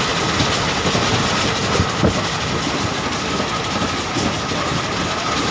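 Express passenger train running at speed, heard from aboard the moving coach: a steady rumble of the wheels on the rails.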